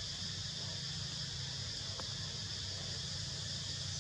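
Steady high-pitched drone of forest insects over a low, even hum, with one faint click about two seconds in.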